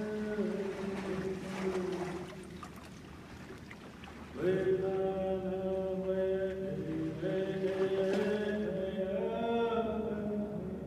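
Chanting voices in soundtrack music: several long held notes that step in pitch. They ease off about two and a half seconds in and come back louder about four and a half seconds in.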